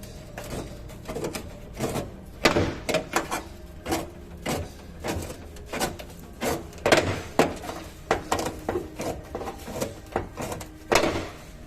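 Irregular knocks and taps on the sheet metal of a dented car door being worked back into shape, one to two strikes a second with a few louder ones.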